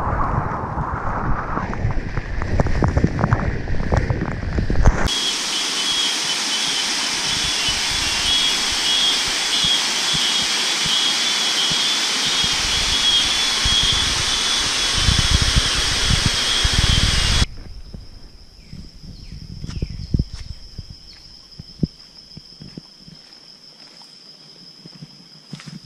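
A waterfall's steady roar of falling water, with buffeting on the microphone for the first few seconds. Two-thirds of the way through it cuts off suddenly to a much quieter scene: a steady high-pitched tone and short chirps.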